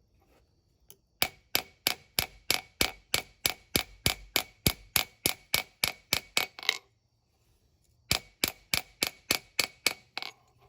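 Hand hammer striking hot spring steel on an anvil in quick, even blows, about three or four a second, each with a bright anvil ring: forging the knife's bevels thinner. The blows stop for about a second and a half midway, then start again.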